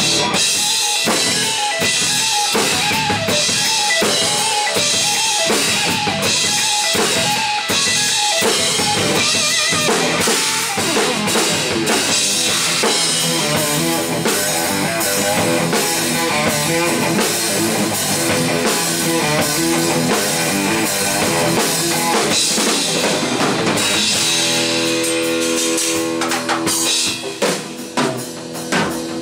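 Instrumental rock trio playing live: electric guitar, electric bass and drum kit together. About three-quarters of the way through, the guitar holds long sustained notes while the drums keep hitting.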